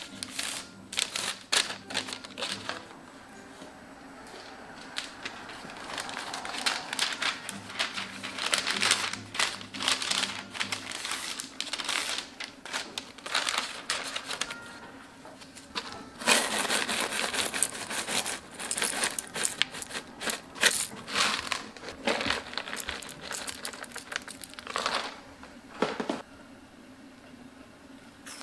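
Paper crinkling and rustling in irregular bursts as a paper crepe wrapper is handled and fitted into a wire cone holder, loudest about midway.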